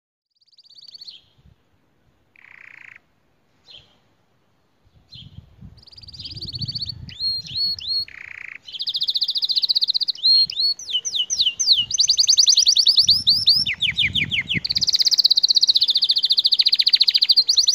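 Canary singing. A few short, separate chirps in the first five seconds build into a loud, continuous song of fast rolling trills and rapidly repeated sweeping notes.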